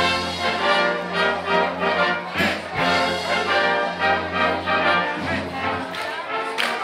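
Brass band playing traditional wind-band music, with long held low brass notes under a rhythmic melody.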